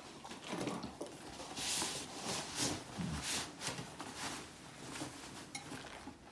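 Shirt fabric rustling and swishing as it is pulled and ironed on an ironing board, in a string of short swishes.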